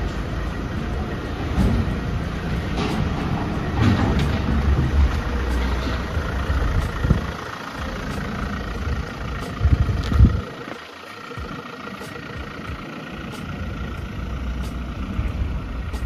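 Ford Transit Custom van driven slowly out of the workshop, a low rumble of its running engine throughout, with a louder swell about ten seconds in before it settles quieter.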